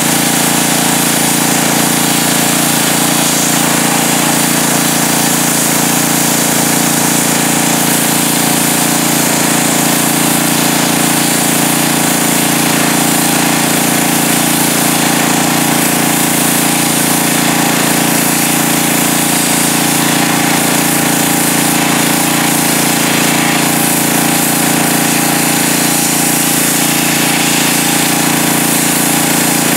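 Pressure washer running steadily, its jet hissing as it blasts water onto a wet muskrat hide on a board to strip off fat and flesh.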